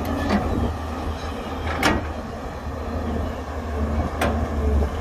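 Heavy diesel engine of an excavator loading a dump truck, running steadily with a low rumble. Three sharp clanks break through it, the loudest about two seconds in and another about four seconds in.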